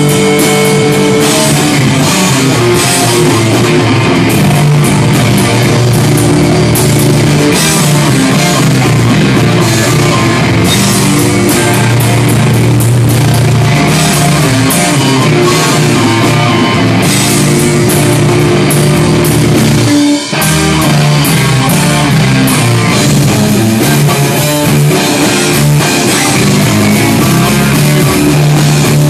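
Loud rock music, a band with guitar and drum kit playing, with a momentary break about twenty seconds in.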